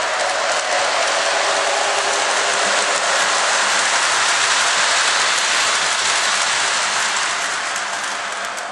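O gauge electric model train running along its track, a steady clattering rattle of wheels and motor.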